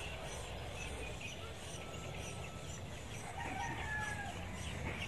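Faint chicken calls, the clearest a short drawn-out call about three and a half seconds in, over steady low background noise.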